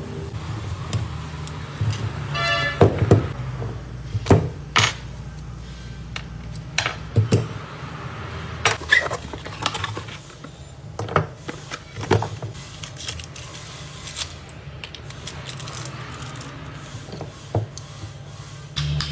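Irregular knocks, clicks and rattles of hard objects being handled, over a steady low hum.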